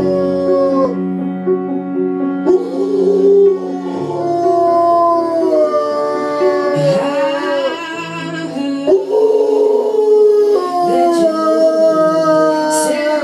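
A dog howling along to music, its long howls rising and falling in pitch over the sustained notes of the song.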